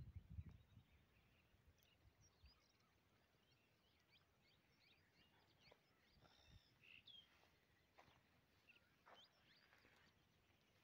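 Near silence outdoors, with faint, scattered bird chirps and short whistles throughout, and a brief low rumble right at the start.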